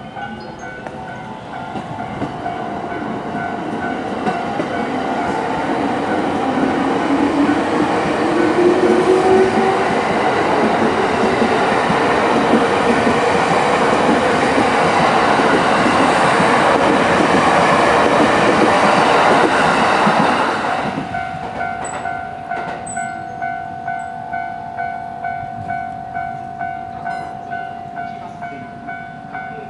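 A Japanese level-crossing warning bell rings in a steady ding-ding rhythm while a Saikyo Line electric commuter train runs past, loud for about twenty seconds, its motor whine rising partway through. The train noise stops abruptly about twenty seconds in, and the crossing bell keeps ringing at about one and a half dings a second.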